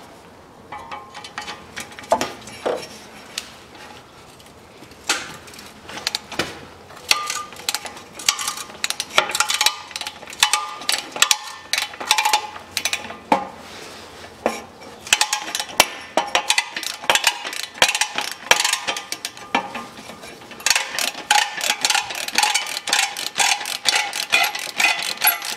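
Ratchet wrench clicking as it works the rusted bolts on a Chevrolet Niva's exhaust downpipe flange loose; scattered clicks at first, turning into fast, steady ratcheting over the second half.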